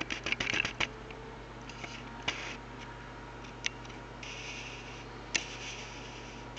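A quick run of small mechanical clicks, then a few single clicks and light rubbing, over a steady low hum.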